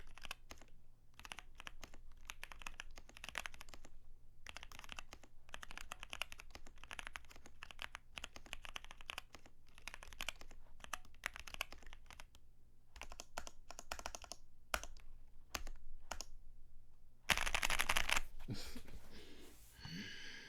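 Typing on a Zoom75 mechanical keyboard with Kailh Heavy Burnt Orange tactile switches: fast runs of key clacks in bursts with short pauses. Near the end comes a louder rushing burst of about a second, then a fainter sound with a few pitched tones.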